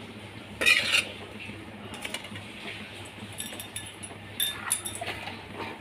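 A ladle scraping and stirring wet black chickpeas in a metal kadhai, with one louder scrape about a second in. Several light clinks of kitchen utensils and containers follow.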